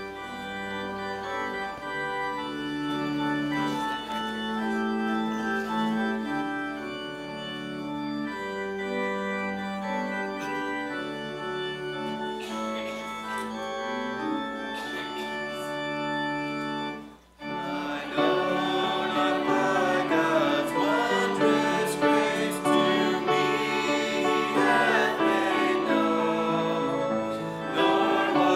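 A hymn's instrumental introduction of long held chords, then from about 18 seconds in a small group of voices starts singing the hymn over the accompaniment, and the music grows louder.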